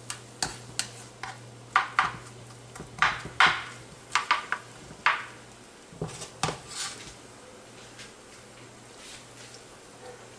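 Kitchen utensils clinking and knocking against cookware in a string of sharp, irregular strikes that die away after about seven seconds.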